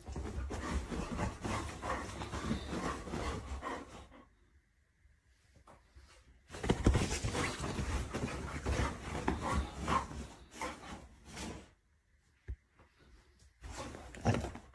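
Bedding rustling, with soft thumps, as a golden retriever scrambles and rolls about on a bed. It comes in two stretches of a few seconds each, with silence between them and a few short rustles near the end.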